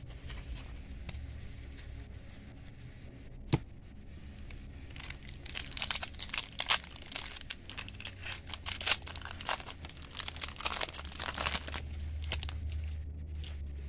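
A foil-wrapped trading-card pack being torn open and its wrapper crinkled, a dense crackle of tearing and rustling foil for about seven seconds. One sharp tap comes about three and a half seconds in, before the tearing starts.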